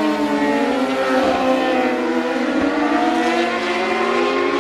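Racing superbike engines at high revs, several at once. Their overlapping notes rise and fall as the riders roll off and get back on the throttle through the corners.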